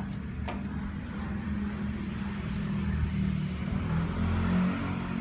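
A motor vehicle's engine running close by, a low steady rumble that grows louder toward the end, with a single sharp click about half a second in.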